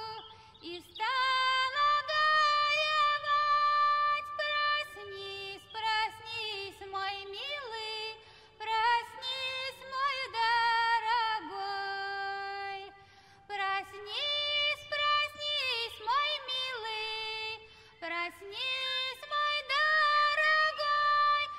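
Music with a high singing voice.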